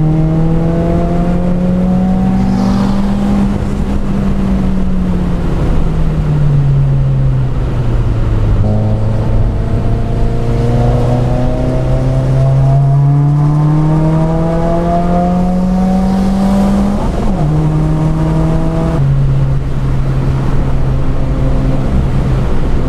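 2015 Subaru WRX's turbocharged flat-four engine, stage 2 modified, driven hard on track. The engine note climbs for about three seconds, falls away as the driver comes off the throttle, then climbs steadily for about eight seconds before a sudden break and a lower, steadier note near the end.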